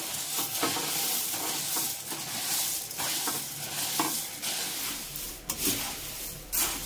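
Puffed rice being scooped with a steel ladle out of a steel platter into a hot steel kadhai to dry-roast it: a continuous rustle and rattle of the light grains, broken by repeated scrapes and clinks of the ladle against the metal.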